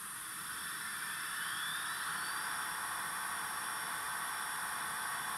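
Steam hiss from the ESU LokSound V5 micro sound decoder in a Roco model of a DR class 93 steam tank locomotive, played through the model's small speaker while the locomotive stands still. The hiss grows louder about half a second in, and a faint rising whine sounds over it.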